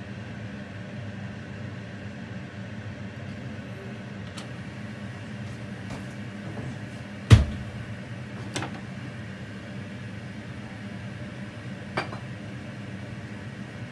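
Steady low kitchen hum, with one sharp knock a little past the middle and two fainter clicks after it.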